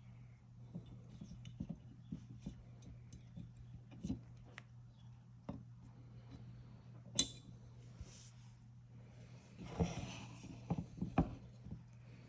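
Scattered light clicks and knocks of small hard objects being handled, with one sharp click about seven seconds in and a short cluster of knocks near the end, over a steady low hum.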